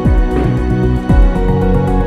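Background music with held tones and a steady electronic beat.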